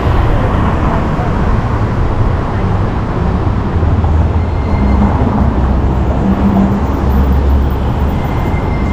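Downtown street traffic heard from a moving bicycle: a steady rumble of road noise, with a deeper engine hum swelling about four to five seconds in and again around seven seconds.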